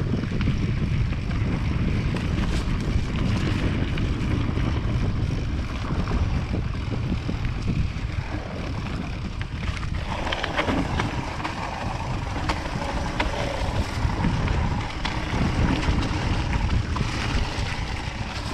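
Wind buffeting the microphone as a hardtail mountain bike rides down a wet trail, with tyre noise and scattered knocks and rattles from the bike over rough ground. About ten seconds in, the hiss grows in the upper range.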